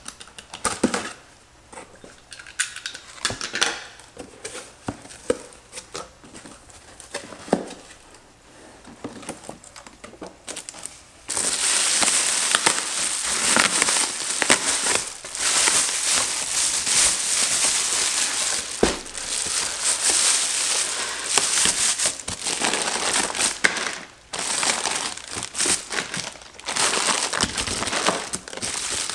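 A box cutter scraping and slitting the tape on a cardboard shipping box, with scattered clicks and scrapes. About eleven seconds in, the loud, continuous crinkling of a foil-bubble insulated liner starts as it is pulled open and handled.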